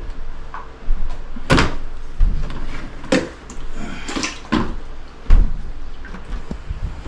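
Irregular knocks, bumps and scrapes of tools and debris being picked up and moved while the work area is cleaned up.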